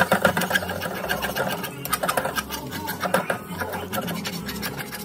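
Slotted metal spatula scraping and clattering rapidly against a kadai (wok) while prawns are stir-fried in thick masala.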